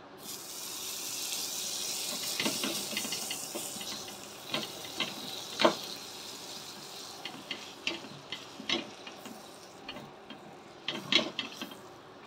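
Butter sizzling on a hot tawa griddle: a strong hiss in the first few seconds that thins out into scattered sharp crackles and pops, with the loudest pops about five and a half seconds in and about eleven seconds in.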